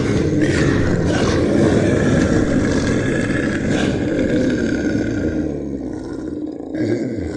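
A large animal's loud, rough, continuous call lasting about five seconds, followed by lower, wavering calls near the end.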